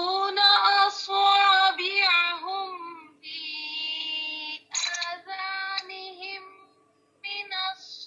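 A high voice chanting a verse of the Qur'an in Arabic with tajweed, in long, wavering held notes, phrase by phrase with short breaths between.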